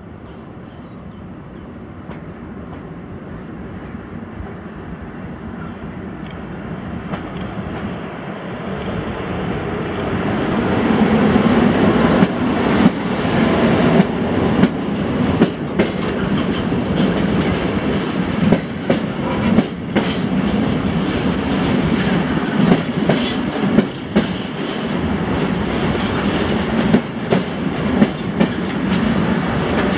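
A freight train hauled by an EU07 electric locomotive approaches, growing steadily louder over about ten seconds. It then passes close by as a long rake of empty flat stake wagons, their wheels clacking over rail joints in a steady rumble with frequent sharp knocks.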